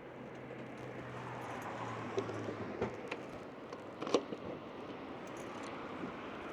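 Motorcycle engine running faintly at low revs, a low steady hum that fades about three seconds in, with a few sharp clicks and knocks.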